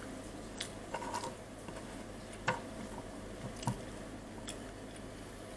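Quiet chewing: scattered soft mouth clicks and smacks, about one a second, over a faint steady hum.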